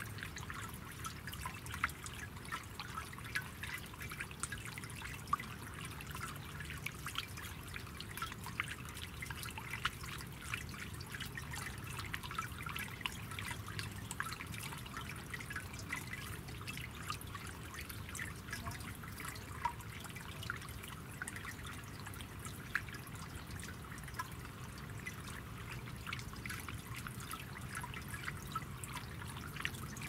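Pump-fed garden bird-bath fountain trickling steadily, water splashing into the basin with many small drips.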